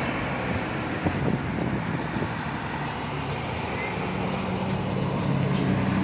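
Tour bus diesel engines on an uphill road: one bus runs away up the bend while a second bus approaches, its engine growing louder from about four seconds in, over tyre and road noise.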